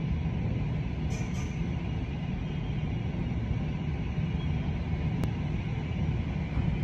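Steady low rumble of a twin-engine jet airliner's engines at idle as it taxis in toward the gate, with a faint click about five seconds in.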